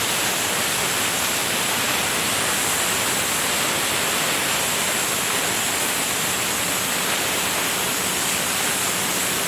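Compressed-air paint spray gun hissing steadily while spraying paint.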